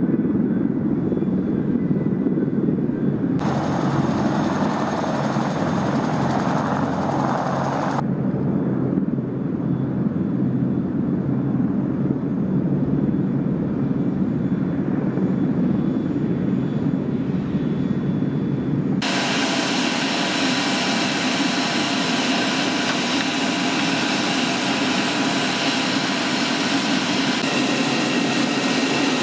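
AH-64 Apache helicopters' rotors and twin turboshaft engines running, a heavy, dense rumble as they fly. About two-thirds through the sound switches to a brighter, hissier turbine whine with several steady tones, from an Apache standing on the ground.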